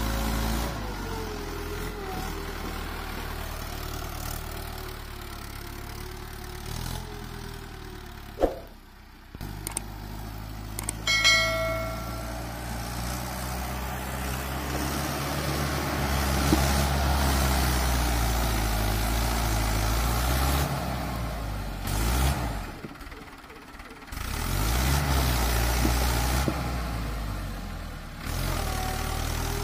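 Mahindra Arjun 555 DI tractor's four-cylinder diesel engine labouring in deep mud, its revs rising and falling as the wheels churn. The sound drops out briefly a few times.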